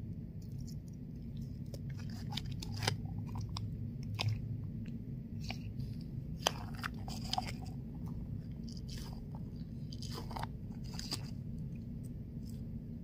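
Hands squeezing and kneading jelly-filled squishy stretch balls, giving irregular squelching crackles and snaps, over a steady low hum.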